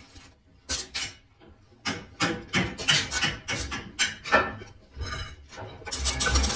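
A run of short scraping strokes at an uneven pace, roughly two or three a second, with quiet gaps between them.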